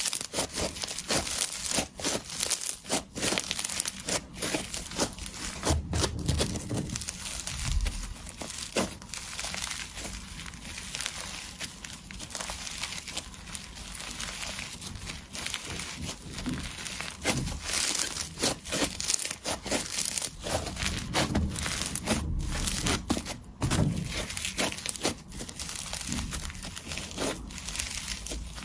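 Slime being squeezed, poked and stretched by hand, giving a dense run of irregular crackles, clicks and small pops.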